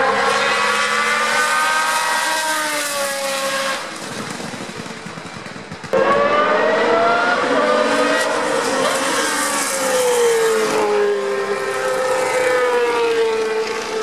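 Historic 1970s Formula One cars' Cosworth DFV V8 engines running at high revs, the pitch climbing and dropping through gear changes. The sound fades a little before halfway, then cuts back in loud and sudden. About two-thirds through there is a long falling note as the revs drop, then a climb again near the end.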